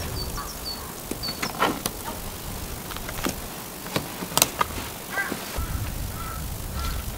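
Small dome tent being pitched by hand: several sharp clicks as its clips and poles are fastened, with the tent fabric rustling between them.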